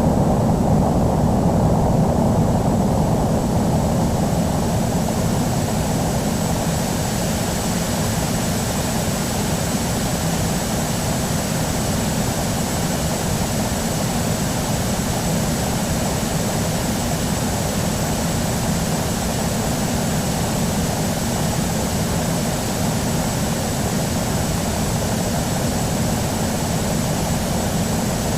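Airbus A319 jet engines running with a steady, even roar and a thin high whine that grows stronger about six seconds in.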